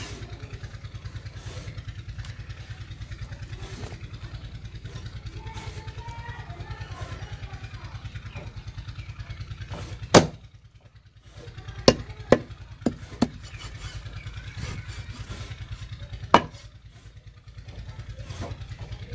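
A long knife chopping through a whole fish onto a wooden log block in sharp, hard blows: one heavy blow about halfway through, four quicker ones a couple of seconds later, and another heavy one later still. Under it runs the steady low hum of an engine.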